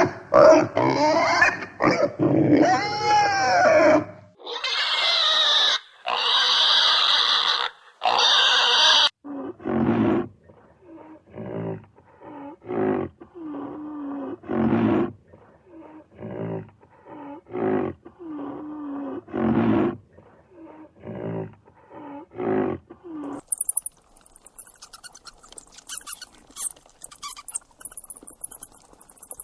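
Calls from several different animals, one after another. Dense calls come first, then three long high calls, then a long run of short calls about once a second, and near the end a fast, high-pitched pulsing chirr.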